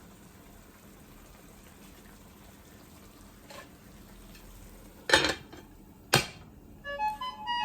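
Two sharp metal knocks of a cooking pot and utensil or lid, about five and six seconds in, over a faint steady simmering hiss; near the end a tune of short stepped notes begins.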